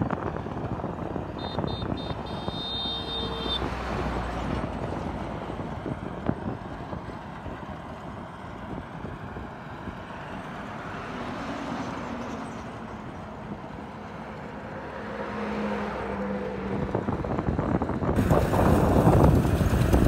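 Small tracked rice combine harvester running steadily as it works across the field, a continuous engine and machinery noise. Near the end a louder rush of noise rises over it.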